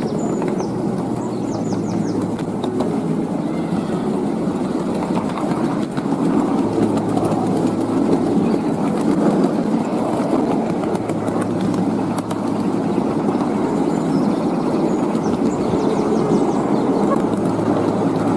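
Steady rumble of a 7¼-inch gauge miniature railway train running along the track, heard from on board, with a low hum that comes and goes every few seconds.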